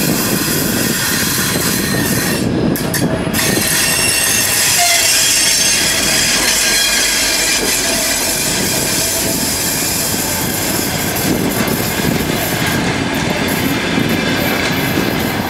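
An M62 diesel locomotive and its passenger coaches rolling past on arrival. The steady rumble and clatter of the wheels runs throughout, with high squealing from wheels and brakes as the train slows.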